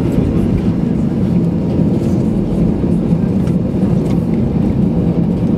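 Steady rumble of an Airbus A320's jet engines heard from inside the cabin as the airliner taxis onto the runway.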